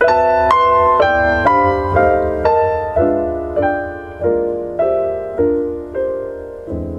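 Piano intro of a song played back through a pair of Bowers & Wilkins 805 D3 two-way bookshelf speakers: chords struck about twice a second, each ringing and fading, starting suddenly and slowing a little towards the end.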